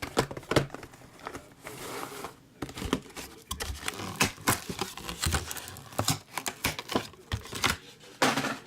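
Trading card packaging being handled and opened: irregular crinkling and tearing of wrap, with many quick sharp ticks and rustles.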